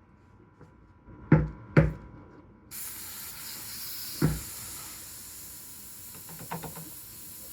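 Two sharp knocks, then compressed air starts hissing steadily through the Virutex SVN 460 air-powered vacuum clamp, with another knock about four seconds in.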